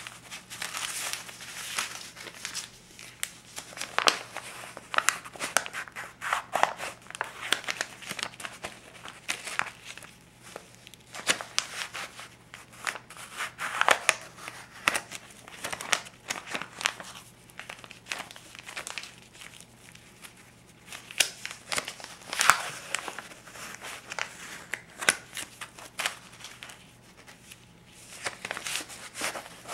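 Crisp paper US dollar bills being handled and flipped: irregular rustling and crinkling with sharp paper snaps, the loudest a few seconds apart.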